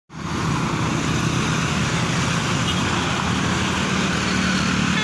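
Large diesel bus engine running steadily amid road traffic noise, a low hum under a constant rush.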